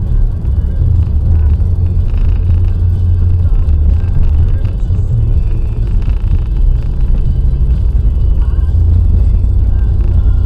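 Car driving at road speed on a motorway: a steady low rumble of engine and road noise, with radio music and voices faintly beneath it.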